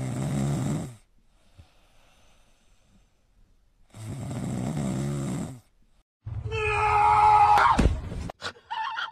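Sleeping cat snoring, two long, noisy snoring breaths about four seconds apart. About six seconds in comes a louder sound with several held tones and a sudden drop in pitch.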